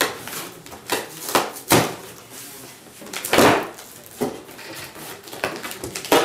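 Stapled cardboard shipping box being pulled open by hand: a series of rips and pops as the flaps tear free of the staples, the longest and loudest about three and a half seconds in.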